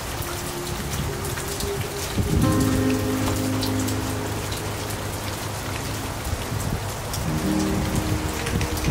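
Steady rain falling, a constant hiss with scattered drips and patters, under soft music of low held chords that change about two seconds in and again near the end.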